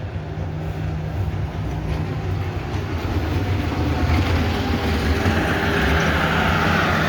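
Steady low rumble of a vehicle running, growing gradually louder, with a rising hiss building over the last few seconds.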